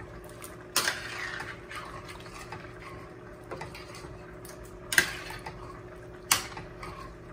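Metal spoon stirring pork ribs in their juice in a stainless steel sauté pan, with wet stirring noise and three sharp clinks of spoon on pan, the loudest about five seconds in.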